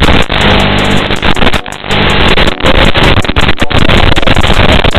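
FPV quadcopter's motors and propellers buzzing in flight, loud and distorted, breaking up briefly several times, most clearly a little after one and a half seconds in.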